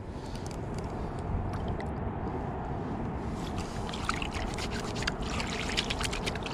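Shallow river water lapping and trickling at a muddy shoreline, a steady wash. From about three and a half seconds in there are many faint light ticks and clicks.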